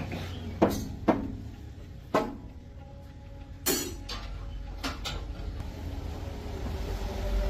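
Five sharp metallic knocks with short ringing tails, spaced irregularly, over a steady low hum.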